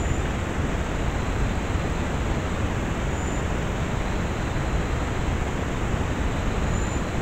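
Steady, even hiss of a trail camera's recording, with a faint short high chirp about every three and a half seconds.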